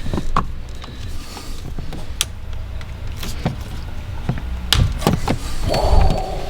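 Clicks, knocks and plastic creaks from hand tools working the steering wheel's airbag trim loose in a Mitsubishi Lancer Evo X, over a steady low rumble, with a short buzz near the end.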